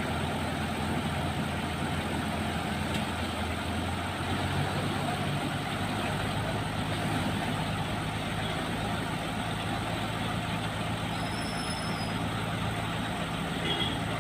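Heavy diesel engines of a tipper lorry and road construction machinery running steadily in a low drone, its pitch shifting slightly about five seconds in.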